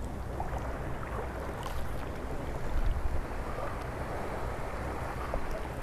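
Wind on the microphone with sea water lapping, a steady low rumble and wash with a few faint ticks.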